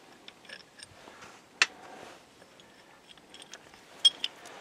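Light metal clicks and clinks as the oil return manifold is worked off the side of an International Harvester B414 hydraulic lift unit: one sharp click about a second and a half in and two more near the end, with faint handling noise between.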